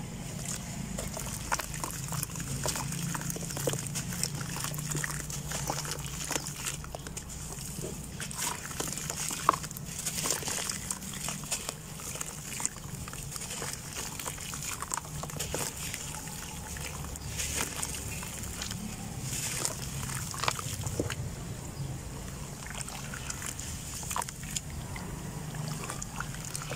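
Soaked dirt blocks being crumbled and squeezed by hand in a tub of water: continuous sloshing and splashing of muddy water with many small wet crackles as the blocks break apart, over a low steady hum.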